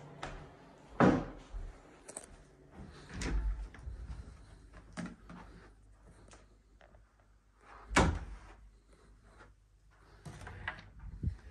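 Scattered knocks and thumps of interior doors being handled. The two loudest come about a second in and about eight seconds in, with softer knocks between.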